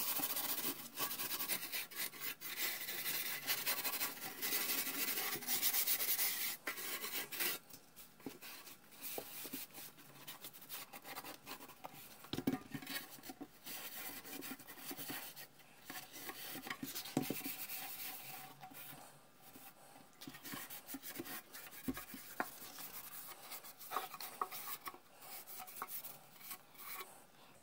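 Steel wool scrubbing rust off the steel cabinet of a Heathkit T-3 signal tracer: steady back-and-forth scrubbing for the first seven seconds or so, then fainter and broken up, with a few light knocks.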